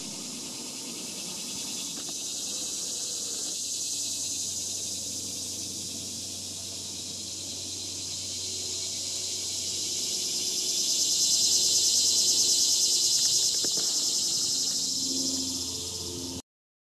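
High, dense insect buzzing that holds steady, then swells to its loudest about two-thirds of the way through and eases off again.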